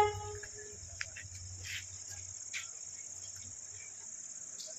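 Steady high-pitched drone of insects such as crickets, with a few faint clicks. Under it, a low pulsing hum fades away over the first couple of seconds.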